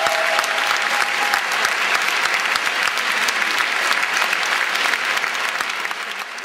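Audience applauding steadily, a dense patter of many hands. A single held tone under it stops about a second and a half in, and the applause fades out near the end.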